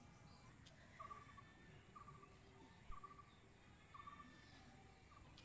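Quiet outdoor ambience with a faint, short trilled animal call repeated about once a second, four times. There is one soft low thump about three seconds in.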